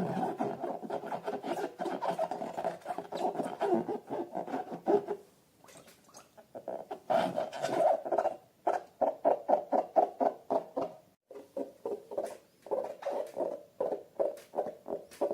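Slime being squeezed and worked by hand, wet squelching in quick repeated strokes, with short pauses about five seconds in and again near eleven seconds.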